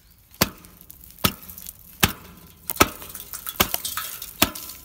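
Hatchet chopping into thick pond ice: about six sharp blows, a little more than one a second.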